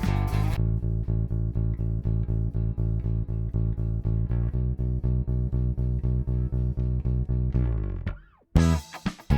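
Lakland Skyline 44-64 GZ PJ four-string bass with passive EMG GZR-PJ pickups, recorded direct through a preamp set flat, playing a steady run of evenly repeated low notes. The tone turns darker about half a second in. The line stops about eight seconds in, and brighter, sharper notes follow near the end.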